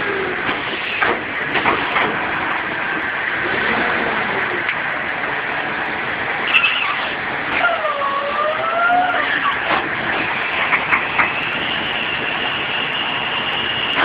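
Tow truck running while its hydraulic auto-grip wheel lift works under a car's wheels: scattered knocks and clanks, a whine that dips and rises in pitch near the middle, and a steady high whine over the last few seconds.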